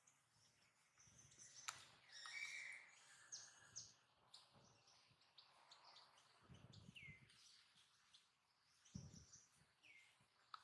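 Faint outdoor ambience with scattered high-pitched chirps and two short falling calls, plus a sharp click and a few low thuds.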